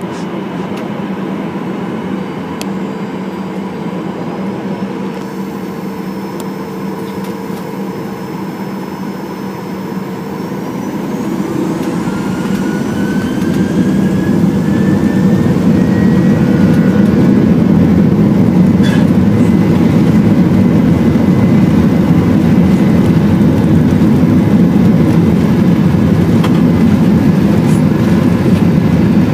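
Boeing 737-800's CFM56-7B turbofan engines heard from inside the cabin: a steady hum while lining up, then about ten seconds in the engines spool up to takeoff thrust with a rising whine. The noise grows much louder over a few seconds and holds steady through the takeoff roll.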